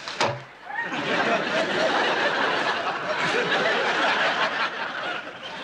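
A sharp knock, then audience laughter that swells about a second in, holds for several seconds and fades near the end.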